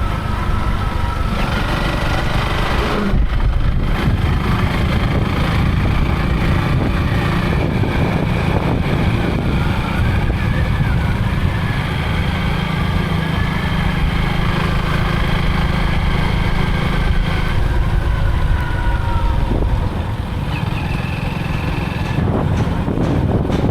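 Motorcycle engine running steadily while riding, with a continuous low rumble of engine and road noise.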